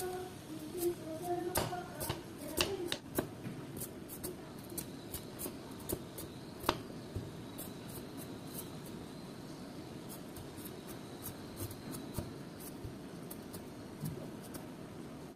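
Vegetable peeler shaving the skin off a green papaya: an irregular run of short scrapes and clicks, stroke after stroke, over a plastic cutting board.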